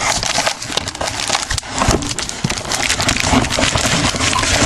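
Packaging crinkling and crackling as it is handled and pulled open, a dense run of small rustles and clicks throughout.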